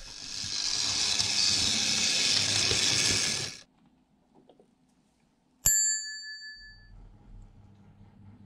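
A steady rushing hiss that stops abruptly, then after a short silence a single bright bell ding with a sharp click, ringing out for about a second: the notification-bell chime of a subscribe-button animation. A faint low hum follows.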